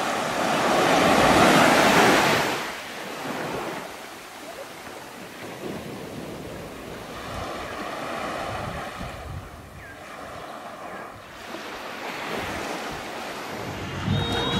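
Small waves washing up onto a sandy beach. The loudest wash swells and fades over the first two seconds or so, and fainter washes follow, with some wind on the microphone.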